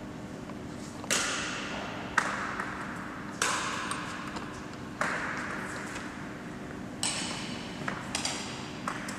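Badminton rackets striking a shuttlecock in a drill rally: about seven sharp hits a second or two apart, each ringing on in the sports hall's echo. A steady low hum runs underneath.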